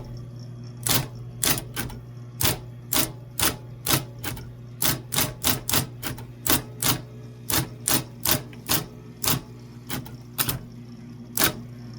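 Vintage typewriter being typed on: irregular sharp key strikes, about two or three a second, over a steady low hum.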